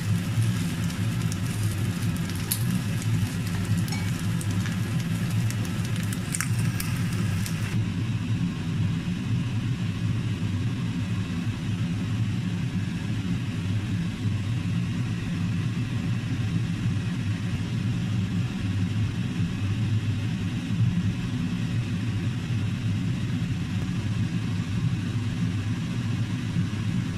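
Prawns sizzling in a frying pan with a spatula clicking against it for the first several seconds, over a steady low hum that goes on after the sizzling stops about eight seconds in.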